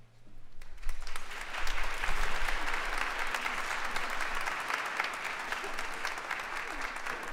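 Audience applauding in a hall: clapping starts about half a second in, swells within the first second or so, then holds steady.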